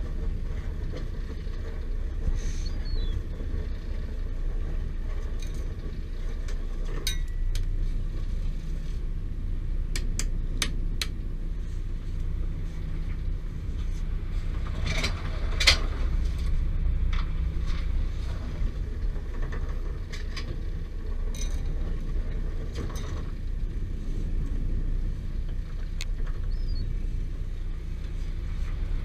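Steady low drone of a small fishing boat's engine and hydraulic line hauler while a longline is hauled aboard over the rail roller, with scattered clicks and knocks from the line and gear running through.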